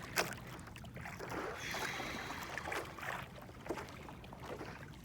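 Water sloshing and splashing around a paddleboard, with scattered small knocks and clicks as the board is handled.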